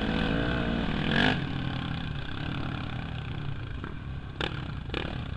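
Off-road dirt bike engine running along a dirt trail. After a brief louder burst about a second in, its note falls gradually as the bike slows. Two sharp knocks come near the end.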